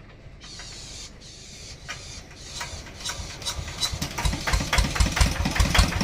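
Kubota RD65 single-cylinder diesel engine starting up. Its beats grow louder from about three seconds in and settle into a steady chug of about five beats a second.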